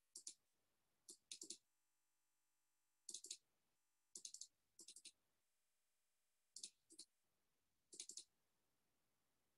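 Computer mouse button clicking faintly, mostly in quick double-clicks, every second or so, as folders are opened one after another.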